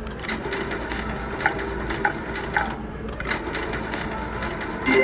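Slot machine spinning its reels: a steady patter of clicks and knocks, several with short electronic beeps, over a constant hum, with a brighter chime right at the end.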